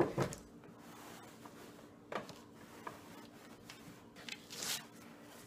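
Fabric-covered chair seat with its wooden base being turned over and set down on a newspaper-covered table: a few knocks as it lands at the start, then a light tap and a soft fabric-and-paper swish as it is pressed and handled.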